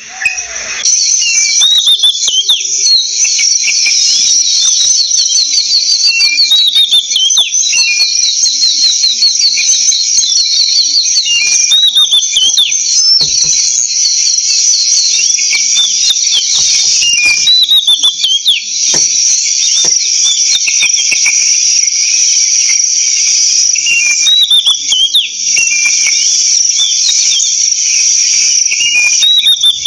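Oriental magpie calling in runs of short, curved whistled notes every few seconds, over a loud, steady chorus of crickets.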